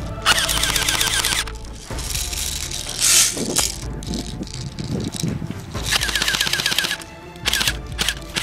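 Two bursts of rapid automatic fire from a toy gun, each about a second and a half long: one near the start and one about six seconds in. A short sharp noise comes about three seconds in.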